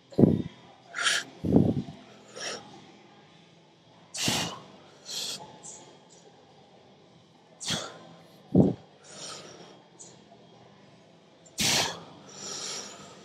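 A man's short, forceful exhales, one with each rep of a one-arm cable lateral raise, a few seconds apart, with a few dull low thuds among them.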